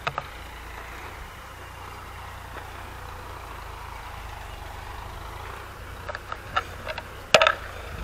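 Distant farm tractor engine running steadily while ploughing. Several sharp clicks and knocks come in the last two seconds, the loudest about half a second before the end.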